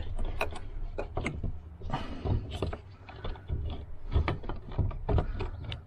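Irregular clicks, knocks and rattles of parts being handled as the loosened lock ring of a fuel pump assembly is worked free and moved out of the way.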